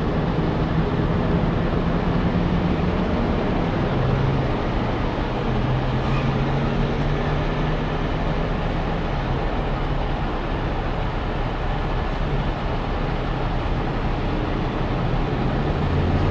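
Diesel engine of a 75-ton heavy rotator tow truck running steadily: a constant low rumble with a steady hum.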